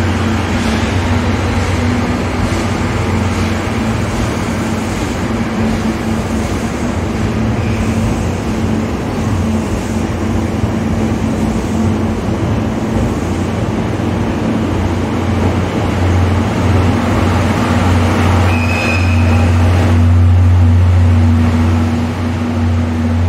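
12-series passenger train departing behind a DE10 diesel locomotive: a steady low diesel drone with the rumble of the moving cars, swelling louder near the end. A brief high whistle sounds near the end.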